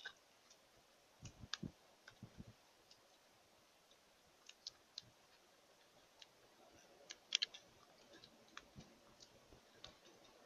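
Faint, scattered sharp clicks and soft taps against a very quiet background, with a quick cluster of louder clicks about seven seconds in.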